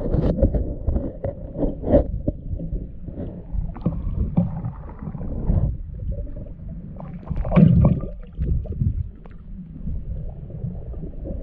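Muffled underwater sound picked up through a GoPro's waterproof housing: low churning water noise with scattered clicks and knocks, and a louder surge about seven and a half seconds in.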